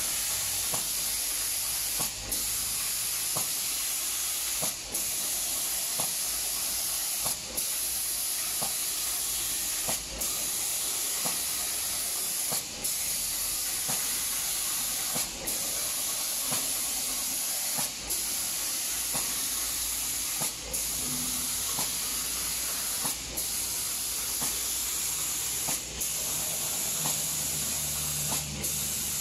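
Air spray guns of an automatic cabinet-door spray painting machine hissing steadily as they atomise paint, cutting out briefly about every two and a half seconds.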